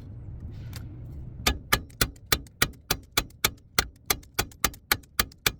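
Ratchet wrench clicking in a steady, even run of sharp clicks, about four a second, starting about a second and a half in, after a low rumble.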